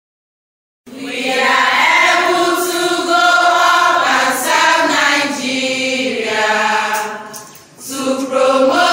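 A group of voices singing together in chorus with long held notes, starting suddenly about a second in after dead silence and dipping briefly near the end.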